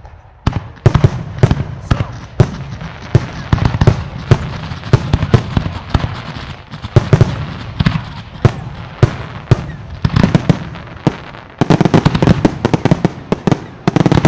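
A fireworks display: aerial shells and multi-shot effects launching and bursting in a run of sharp bangs, a few each second. The bangs thicken into a dense, rapid volley near the end.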